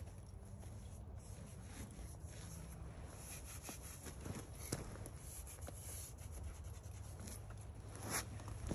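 Faint scraping and rubbing of a climber's shoe rubber and hands on sandstone holds, with a couple of sharper scuffs about five seconds in and near the end, over a steady low rumble.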